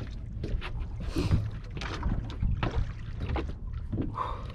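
Small boat drifting at sea: water slapping and knocking irregularly against the hull over a low steady rumble.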